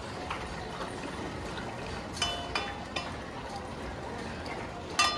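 Dogs eating dry kibble from stainless steel bowls on a tiled floor, with a few ringing metal clinks of the bowls, the loudest near the end.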